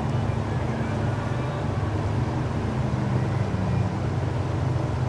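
Outboard motor on a pontoon boat running steadily under way, a low even drone.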